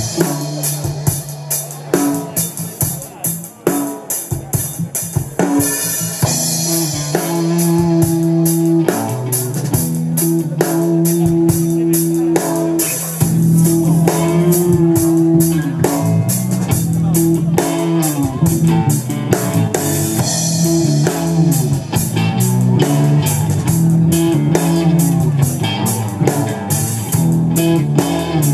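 Live rock band playing: electric guitar, bass guitar and drum kit, with drum hits throughout. About eight seconds in, a held, bending melody line comes in over the rhythm.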